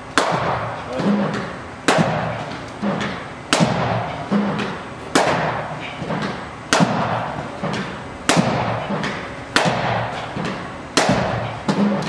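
A cricket bat striking balls in practice, a sharp crack about every one and a half seconds, about eight in all, each ringing on in the indoor net hall.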